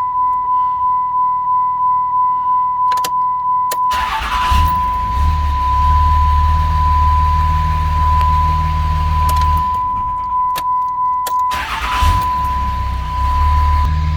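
2006 Dodge Ram 2500's 5.9 L Cummins inline-six diesel being shut off and restarted twice. It catches promptly at about 4 s and again near 12 s and keeps running without stalling, a sign that the hard-start-and-stall fault is cured. A steady electronic tone sounds throughout.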